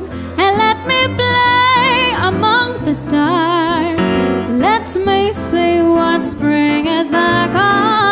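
Female singer holding long notes with vibrato, backed by a live band: a Nord Stage keyboard playing piano sounds and an electric guitar.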